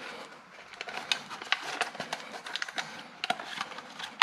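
A plastic air-intake duct and its rubber flange being handled and pushed into place: an irregular run of small clicks, taps and light scrapes of hard plastic and rubber.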